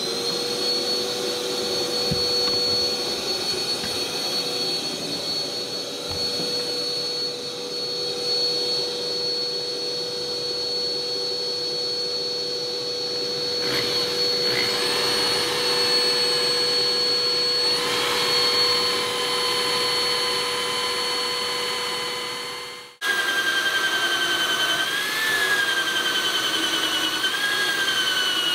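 Electric drill running for the hole of a boat rod holder. It runs steadily at one pitch, shifting in pitch a couple of times. About twenty-three seconds in it stops briefly and starts again, its pitch now wavering as it works.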